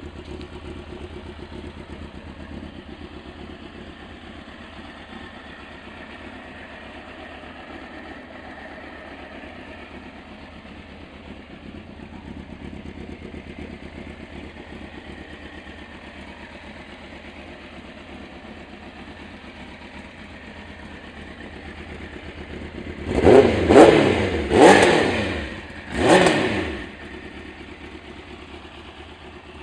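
Suzuki GSX motorcycle engine idling steadily, then blipped three times in quick succession near the end, each rev rising sharply and dropping back to idle.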